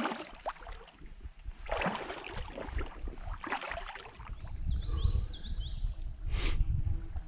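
Water splashing and sloshing in a few separate bursts as a canoe is waded and pulled through a shallow channel. A bird chirps in quick rising runs, and a low rumble builds in the second half.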